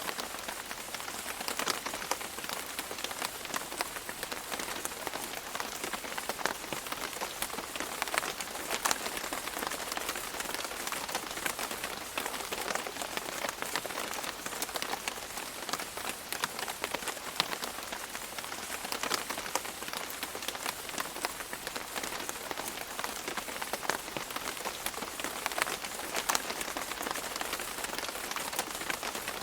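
Steady rain falling on a surface, a constant hiss dotted with many sharp individual drop ticks.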